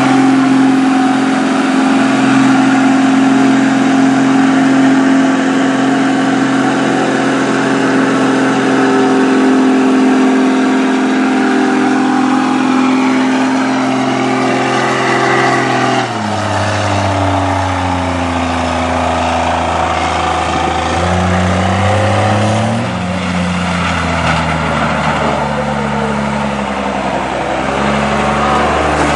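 Lifted GMC pickup mud truck's engine held at high, steady revs as the truck churns through a mud pit, with the rush of mud and water thrown by the tires. About halfway through the sound changes abruptly to a lower engine note revving up and down several times.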